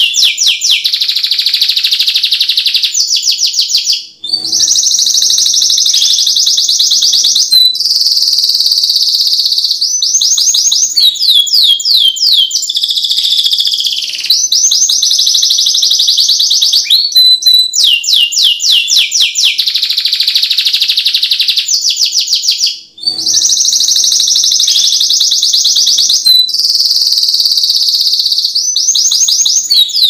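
Domestic canary singing loudly in a long unbroken run of fast rolling trills and quick sweeping notes, pausing for a moment about four seconds in and again a little past twenty seconds.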